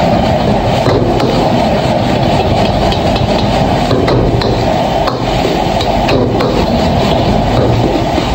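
High-flame gas wok burner running steadily and loudly, with a metal spatula scraping and knocking against the wok as fried rice is stir-fried.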